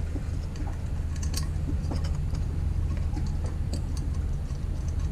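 Scattered small metallic clicks and taps as the stainless terminal-box cover of an electric pump motor is handled and fitted over the wiring, over a steady low hum.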